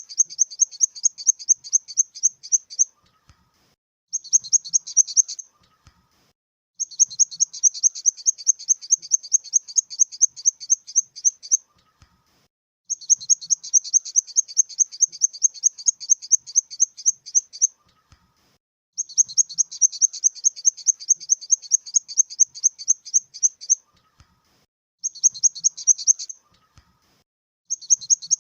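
Grasshopper stridulating: high, rapid pulsed chirping at about eight pulses a second, in runs of several seconds broken by pauses of about a second, with the odd shorter run.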